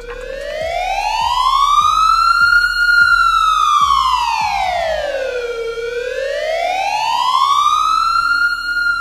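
Police siren wailing: a loud tone that slowly rises for about three seconds, falls for about three, then rises again.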